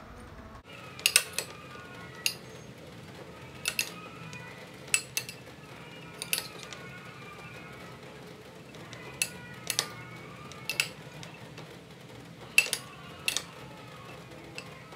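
Metal spoon clinking against a glass bowl while stirring a chickpea salad: sharp, irregular clinks, often in pairs, about every second or two, over faint background music.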